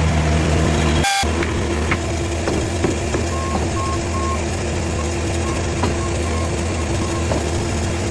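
Heavy engine running steadily, with a brief break about a second in and a few short beeps about three to four seconds in.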